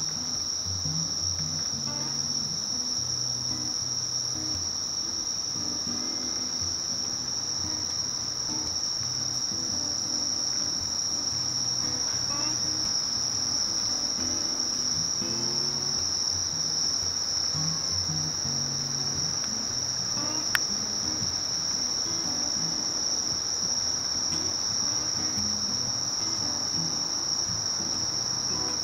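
Singing insects at night: a steady, unbroken high-pitched trill that never pauses. One sharp click sounds about two-thirds of the way through.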